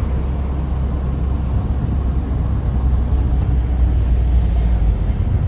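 Steady low engine and road drone of a vehicle being driven, heard from inside the cabin.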